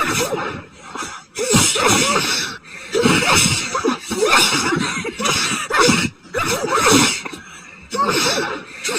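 A woman sneezing over and over in a fit, one voiced sneeze about every second with short breaths between.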